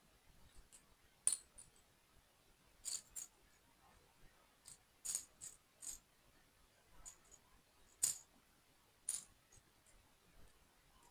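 Small toy pieces from a concrete mixer truck model kit being handled during assembly: irregular sharp clicks and taps, the loudest about a second in and again near eight seconds in.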